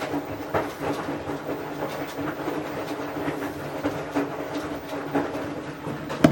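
A machine running with a steady hum, with light irregular clicks and knocks over it and one sharp knock near the end.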